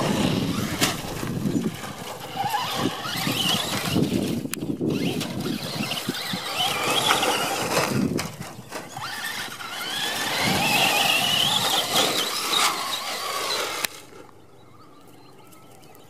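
Traxxas RC truck's brushless electric motor whining, rising and falling in pitch as it speeds up and slows again and again, with the tyres rattling over loose dirt and gravel. It cuts off suddenly about fourteen seconds in.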